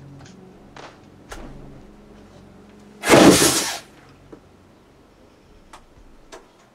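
A sudden loud whoosh of flame about three seconds in, lasting under a second, from a magician's fire flash, with a few faint clicks before and after it.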